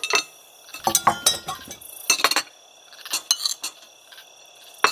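Clusters of sharp clinks and rattles with a short metallic ring, like hard small objects or cutlery knocking together, coming in bursts about once a second.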